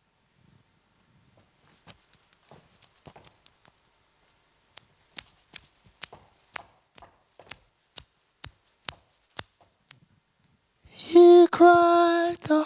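Sharp clicks keeping a steady beat, about two a second, for several seconds after a few scattered ones. About a second and a half before the end, a woman starts singing unaccompanied, holding a steady note.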